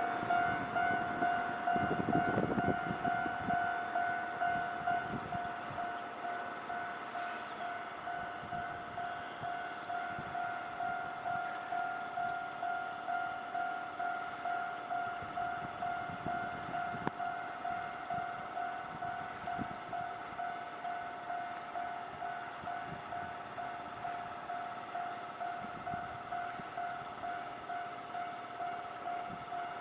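Japanese railway level-crossing alarm ringing: an electronic bell strikes one ringing tone over and over, about one and a half times a second, at an even pace. Broader rumbling noise dies away in the first few seconds.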